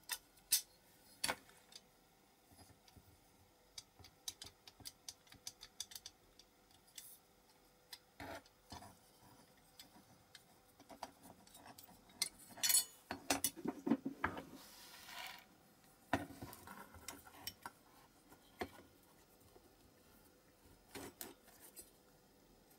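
Scattered light clicks and metal clinks as a diecast metal model plane and its small parts are handled and taken apart on a cutting mat, with a busier stretch of rubbing and clattering about two-thirds of the way through.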